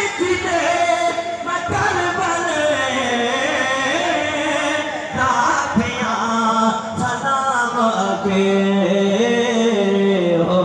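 A voice singing a devotional chant, with long held notes that slide in pitch and no accompaniment heard.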